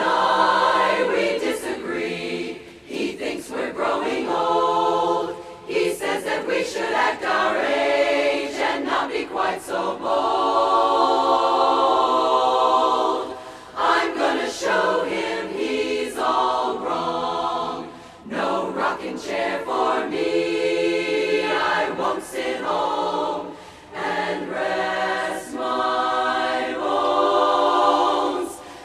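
Women's barbershop chorus singing a cappella in close harmony, sustained chords broken by short breaks between phrases.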